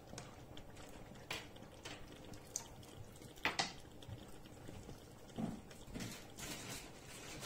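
Chicken and vegetables simmering in sauce in a frying pan: faint bubbling with scattered soft pops and clicks, the sharpest about three and a half seconds in.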